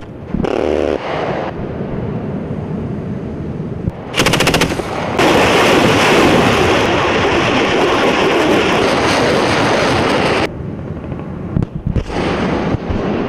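A short, very fast burst of automatic weapon fire, then a multiple rocket launcher salvo: rockets leaving in one continuous loud rush for about five seconds that cuts off suddenly. Scattered gunshots follow near the end.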